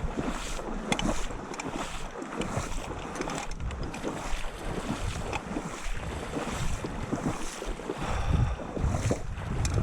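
Wind rumbling on the microphone in uneven gusts, with a few faint ticks.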